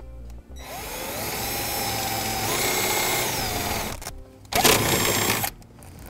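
Cordless drill driving a #8 self-tapping screw with a 1/4-inch nut driver into the steel parking-brake bracket. The motor whine rises as it spins up, runs about three seconds with the pitch climbing and then sagging as the screw cuts in, and stops. A second, shorter and louder burst follows near the end.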